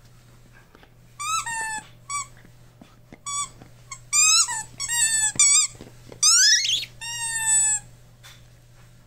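Rubber squeaky dog toy squeaked over and over as a Rottweiler chews it: about eight irregular high squeaks, some bending in pitch, several of them loud.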